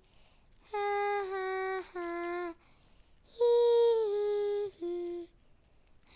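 A girl's voice humming a few long, held notes, each stepping slightly down in pitch, with short pauses between them; the third note is the loudest and breathiest.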